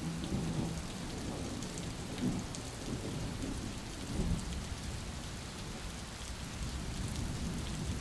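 Steady rain hissing, with low rolls of thunder swelling now and then: a thunderstorm ambience.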